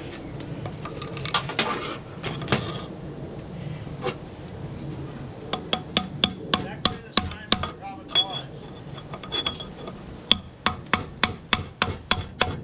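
Hammer tapping metal, driving a stainless steel sleeve onto an outboard's prop shaft: a few scattered knocks, then from about halfway a quick run of sharp, ringing taps, about three a second.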